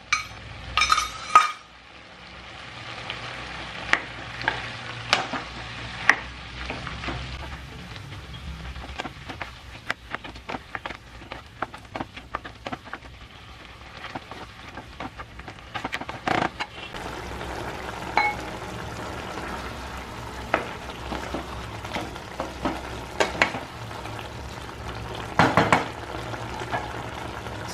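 Chicken, potatoes and tomatoes sizzling in a non-stick frying pan while a spatula stirs them, with frequent scrapes and taps against the pan. A few sharper knocks come in the first second or so as a steel bowl of chopped tomatoes is tipped and tapped over the pan.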